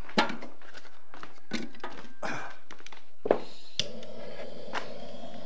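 Scattered knocks and thumps, the loudest about three seconds in. Just before four seconds a steady low background noise sets in.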